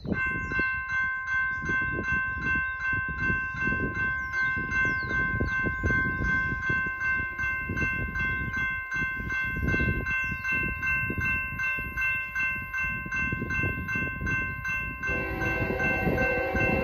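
Railroad grade crossing bell ringing at a quick, steady rate as the crossing activates for an approaching train. About a second before the end a train horn joins in.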